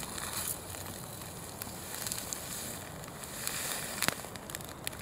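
Log campfire crackling over glowing embers, with scattered small pops, the sharpest about four seconds in.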